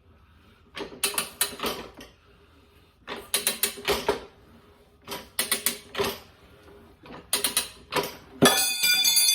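Rabaconda street bike tire changer working the second bead off a motorcycle rear wheel: four bursts of mechanical clicking and creaking about every second and a half, then a ringing clang near the end.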